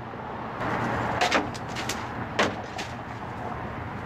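A handful of short knocks and rustles as trash is handled and taken out of a car, over a steady low hum.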